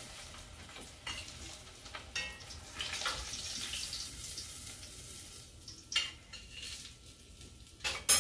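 Kipes (bulgur and ground-beef croquettes) sizzling in hot oil as they are lifted out with a spoon, with light clinks of the spoon against the pot. The sizzle dies down after about four seconds. Two sharper metal clanks follow, the second near the end and the loudest.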